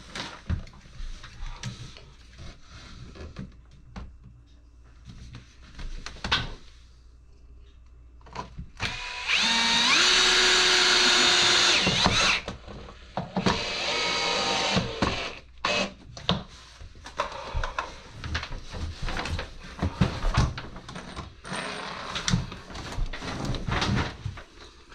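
Power drill running in two bursts: a loud steady run of about three seconds starting about nine seconds in, then a shorter, quieter one, with clicks and knocks of handling the drill and board in between.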